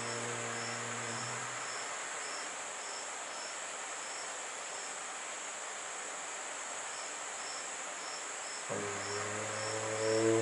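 Insects chirping in a steady high-pitched rhythm, a couple of chirps a second, over a constant high hiss. A low steady droning tone with overtones fades out in the first second or two, and another begins near the end.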